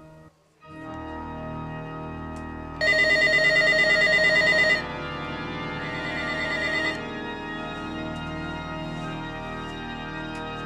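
Electronic trilling ring of a telephone: one loud ring of about two seconds, then a fainter, shorter one, over sustained organ chords.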